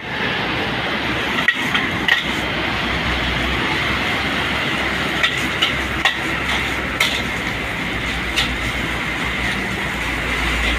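Metal spatula scraping and clanking against a steel wok while stir-frying rice, with sharp clanks every second or so over the steady rush of the gas wok burner.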